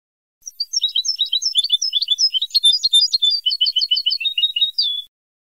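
European goldfinch song phrase from a tutoring tape of the old Moroccan Sebta style, made to teach caged goldfinches this song. A rapid run of high twittering notes starts about half a second in and ends in a short held note, then stops abruptly about five seconds in.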